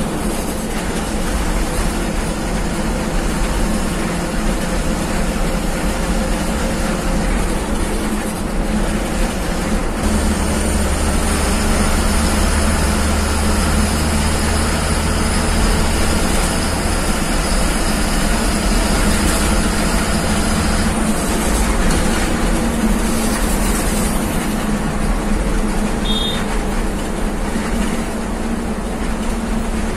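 Steady engine and road noise of a Haryana Roadways bus, heard from inside the cabin while it cruises in traffic. A faint high whine runs through the middle for about ten seconds.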